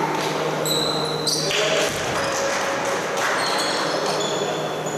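Basketball game sounds on a hardwood court: a ball bouncing and shoes squeaking in short high squeals, echoing in a large sports hall.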